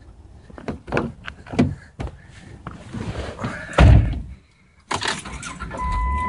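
A car door being opened and shut while a handheld camera is carried into the car: a string of sharp knocks and rustling, then one loud, deep door thump a little before four seconds in. Near the end a steady electronic tone starts, with a low rumble under it.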